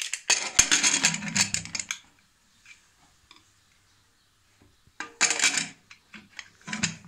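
Aluminium pressure cooker lid being fitted and locked, metal clinking and scraping against the pot rim in a burst lasting about two seconds, then a shorter burst about five seconds in as the lid handle is swung shut.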